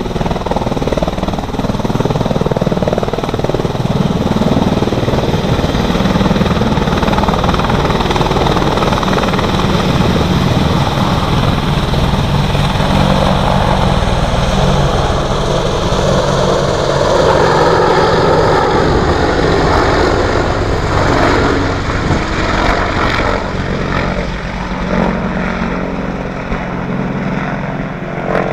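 Twin-turbine AH-64 Apache attack helicopter lifting off and flying past low, then climbing away: a steady rotor beat under a high turbine whine that sinks in pitch as it passes.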